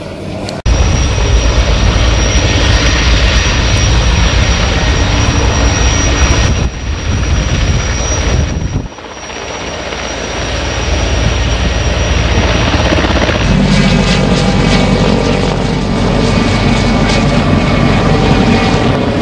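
Turbine helicopters flying low past in several clips cut together, loud, with the steady beat of the main rotor blades and turbine whine. A high steady whine runs until a cut about 13 seconds in. The later part holds a Mil Mi-8-type twin-turbine helicopter and then a Mil Mi-2.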